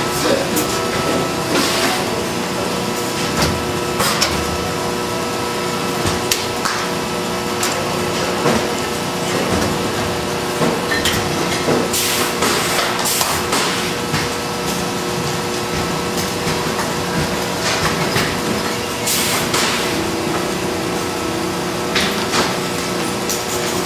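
Hydraulic book building-in press and bookbinding-shop machinery running with a steady hum, broken by several sharp clacks and knocks at irregular intervals as book blocks are loaded and the press stations work.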